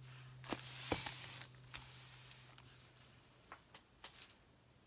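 Clear plastic wrapping of a boxed planner bundle rustling as it is handled, with a couple of light knocks as the bundle is set down about a second in, then a few faint taps. A low steady hum runs underneath.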